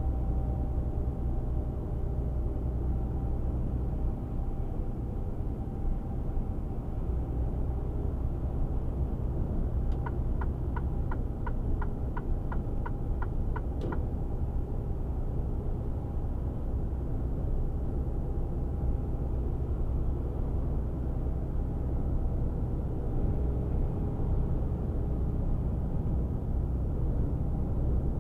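Inside the cab of a Mercedes-Benz Actros 1848 truck cruising on a highway: the steady low drone of its straight-six diesel mixed with tyre and road noise. About a third of the way in, a run of about a dozen even ticks, roughly three a second, lasts some four seconds.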